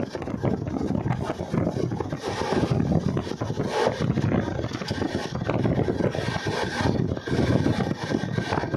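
Running noise of a moving train heard from inside the carriage: a loud, dense, unsteady rumble and rattle of wheels on the track.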